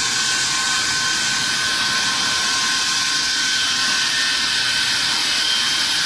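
CNC bridge saw blade cutting a stone slab wet, with water spraying onto the cut: a steady, loud hissing grind with a constant high whine.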